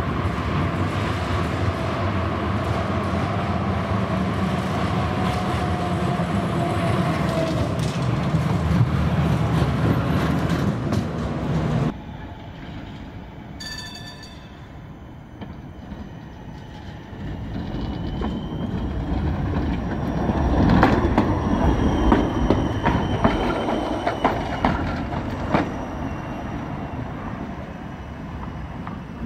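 Electric trams running on street track, steady rolling and motor noise with a faint whine. About 12 s in the sound drops suddenly, then builds again as a low-floor tram approaches, its wheels clicking over rail joints.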